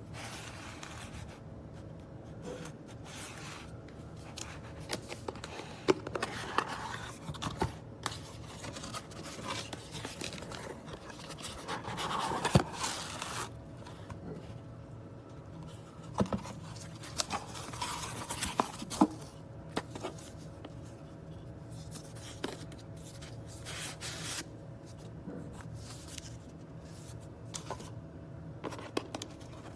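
Scraping and rubbing with scattered light clicks and taps, as of small hard parts being handled by hand, over a faint steady hum. The louder clusters come about 6 s, 12 s and 18 s in.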